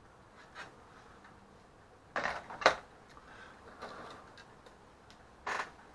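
Plastic model-kit sprues being handled, lifted and set down on a cutting mat: scattered light clicks and clatters, the loudest a sharp plastic clack about two and a half seconds in, with another short clatter near the end.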